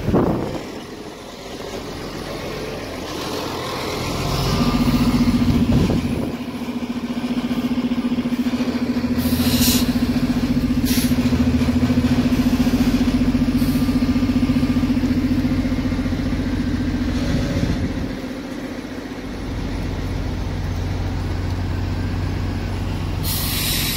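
Proterra Catalyst BE40 battery-electric bus standing at a stop with a steady electric hum among street traffic noise. The hum stops about two-thirds of the way through and a lower, steady hum follows. A few short hisses of air break in.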